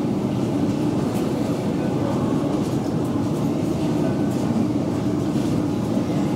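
Deve Schindler hydraulic elevator running, heard from inside the cab: a steady low hum from the hydraulic drive and the moving cab.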